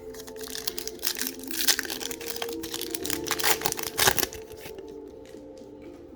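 Crinkling of a plastic trading-card pack wrapper being handled and opened, a dense crackle with sharp clicks, loudest from about one to four seconds in.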